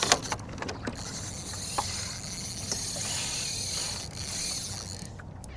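Fishing reel being cranked to fight a freshly hooked bonito, a steady mechanical winding with a few sharp clicks and knocks of rod and gear handling near the start and about two seconds in.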